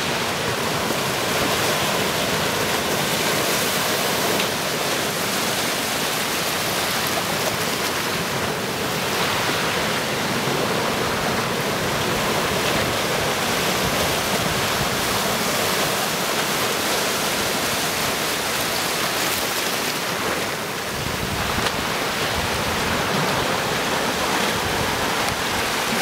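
Sea surf washing and breaking among large boulders on a rocky shore: a steady, unbroken rush of moving water.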